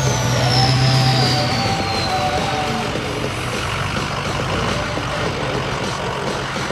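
2005 Ford F-250's 6.0L Power Stroke V8 turbo diesel running through a full MBRP exhaust. Its turbo whistle falls steadily in pitch over the first two seconds as the turbo spools down, then the engine runs on steadily.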